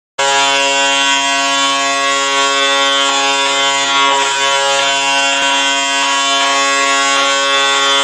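Toronto Maple Leafs arena goal horn: one long, steady blast that starts abruptly, the signal of a home goal.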